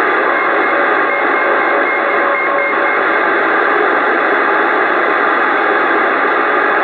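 CB radio static: a steady hiss from the radio's speaker with faint whistling tones under it, while the channel is open with no one talking.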